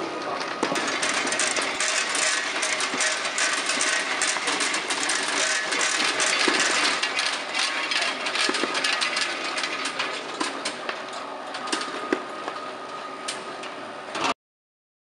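Sweet grading machine running: a dense clatter of many small ticks and clicks as sweets tumble over its spiral steel sorting rollers and drop from the oversize chute. The sound cuts off suddenly near the end.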